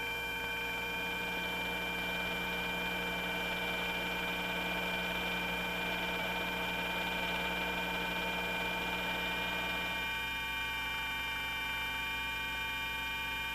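Steady electrical hum made of several held tones over a faint hiss, with a low tone that cuts off about ten seconds in.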